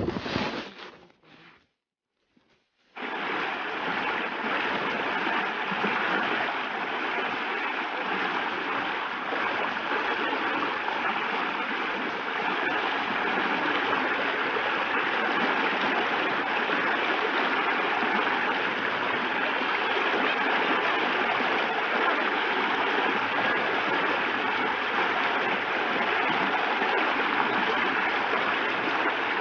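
Shallow rocky stream running over stones: a steady rush of water that starts about three seconds in, after a short burst of noise and a moment of silence.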